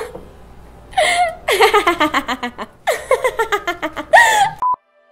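A young woman laughing in several bursts, some breaking into rapid ha-ha pulses that fall in pitch. It cuts off suddenly near the end.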